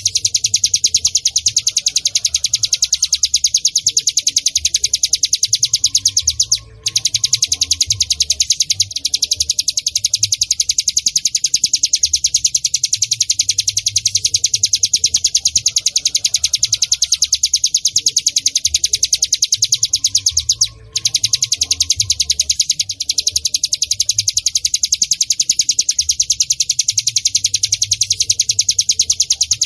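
Ciblek gunung (cigun) singing a long, very fast, high-pitched trill of rapidly repeated notes. It breaks off briefly twice, about seven seconds in and again about twenty-one seconds in.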